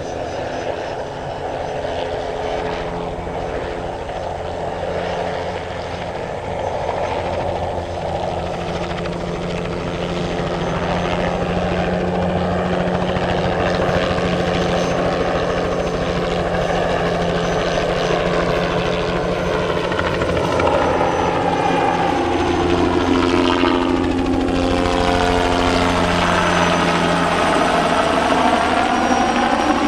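Bell 206B-3 JetRanger III helicopter flying low, its rotor and turbine engine growing louder as it comes in. It passes close by about three-quarters of the way through, with a sweeping, swirling shift in tone as it goes over.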